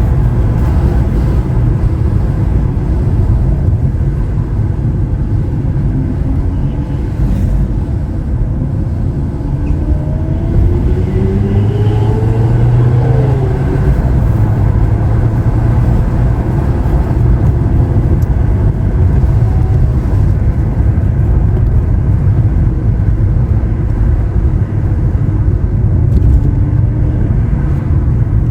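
Lamborghini Aventador SV Roadster's V12 engine driving over a steady, heavy low rumble of road noise. About halfway through, the engine pitch climbs for a few seconds and then drops sharply.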